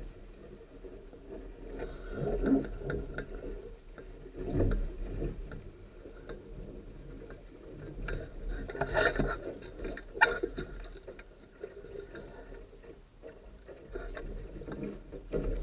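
Water sloshing and lapping against a small sailboat's hull under a low rumble, with irregular knocks, clicks and scrapes as the wooden daggerboard is pulled up out of its trunk and handled; one sharp knock stands out about ten seconds in.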